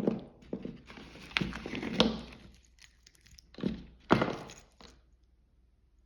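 Handling noises from unpacking a boxed watch: about five sharp knocks as the box and its parts are set down and moved, with rustling in between, dying away about five seconds in.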